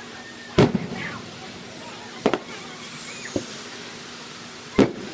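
Aerial fireworks shells bursting: four sharp bangs at uneven intervals, the loudest about half a second in and a fainter one around three and a half seconds.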